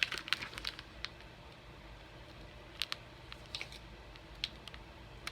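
Plastic snack packet crinkling as it is handled: a quick run of crackles in the first second, then a few separate crackles.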